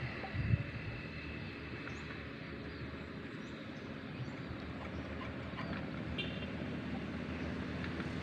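A walk-behind paddy tractor's single-cylinder diesel engine running steadily, with a short low thump about half a second in.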